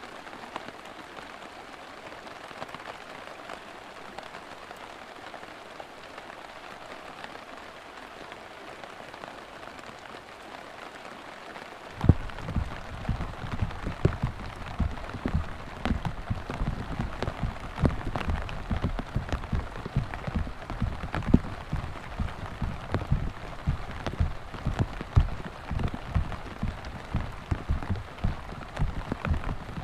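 Heavy rain falling as a steady hiss; about halfway through, large drops start pattering loudly and irregularly on a surface close by, with dense low thuds.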